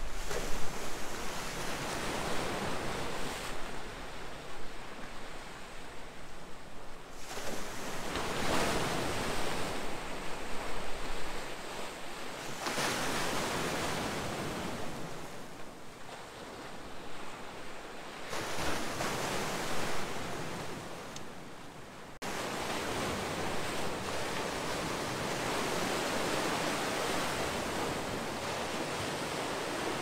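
Sea waves breaking and washing against a rocky shore, the surf swelling and ebbing in surges every few seconds. About two-thirds of the way through it changes abruptly to a steadier, even wash.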